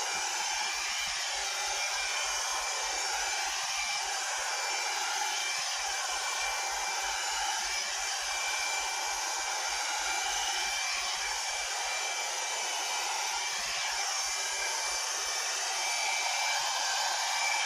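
Sayona hot air styling brush running steadily, a constant blowing hiss with a thin high motor whine, as it is drawn through long hair.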